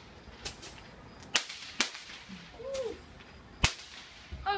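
Four sharp, separate cracks, unevenly spaced: a weaker one about half a second in, then louder ones at about one and a half, two and three and a half seconds.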